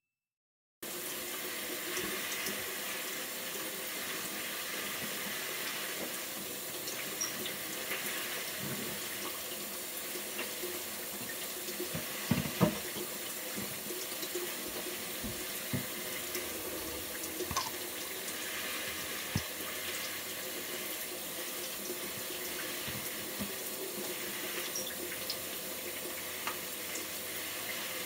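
Water running steadily in a small bathroom, starting just under a second in, with scattered light knocks and clicks of handling, the loudest a little before halfway.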